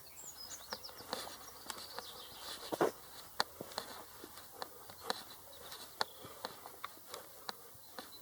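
Small songbirds chirping high and quick in the first second or so. Through the rest there are irregular sharp ticks and clicks, a couple a second, with one louder knock about three seconds in.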